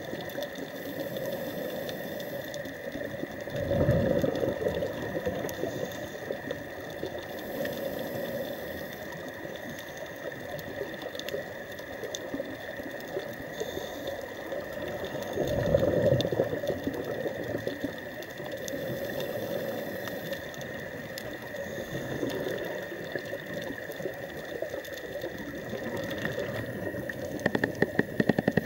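Underwater ambience recorded by a diver's camera, with scuba regulator exhaust bubbles surging and gurgling, strongest about 4 seconds in and again about 16 seconds in, and a faint steady high whine under it. A quick run of sharp clicks comes near the end.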